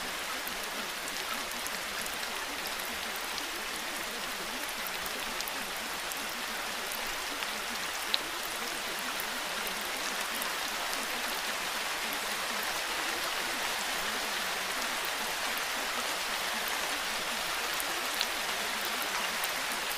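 Steady rain falling, an even hiss with scattered drop ticks and a couple of sharper taps.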